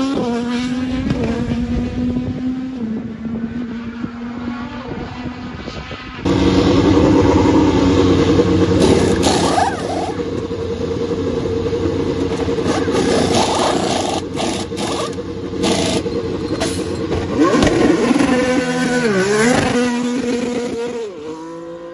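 IndyCar's twin-turbo V6 running at a steady pitch and fading as the car goes away on track. After a cut it runs steadily in the pits with the clatter and knocks of pit-stop work. Near the end the engine note dips and rises again as the car pulls away.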